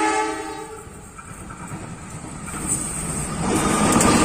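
CC203 diesel-electric locomotive running light without carriages. Its multi-note horn blast cuts off about a second in, then its engine and wheels grow steadily louder as it passes close by.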